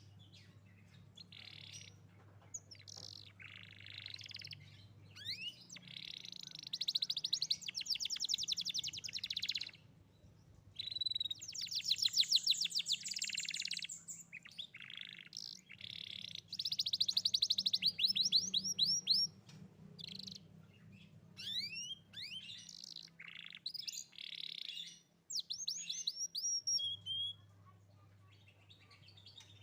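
Young domestic canary in full song: phrases of very fast trills and rolls with quick sweeping chirps, broken by short pauses.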